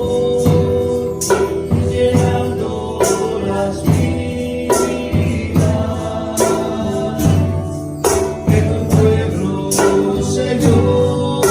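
Christian praise song (alabanza) performed by a group: voices singing over instrumental backing with tambourine and a steady beat.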